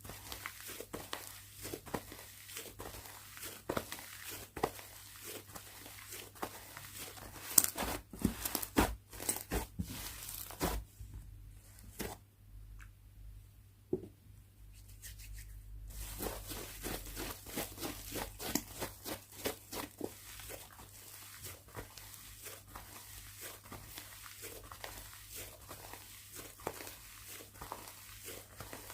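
Slime being squeezed, stretched and poked by hand, giving dense crackling and popping with sticky tearing sounds. It is loudest about a third of the way in, then goes nearly still for a few seconds before the crackling resumes.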